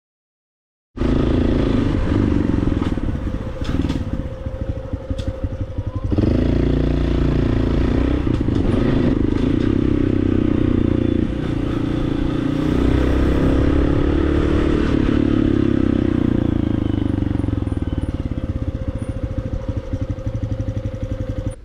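Motorcycle engine running while being ridden, its note rising and falling with the throttle; it starts about a second in and gets louder around six seconds in.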